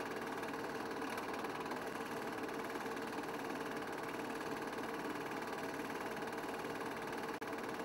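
Film projector running with a steady mechanical whirr and fast even clatter that does not change.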